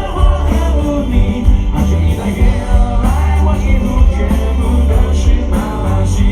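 Rock band playing live with a lead vocal: a heavy bass and drum beat under singing and guitars.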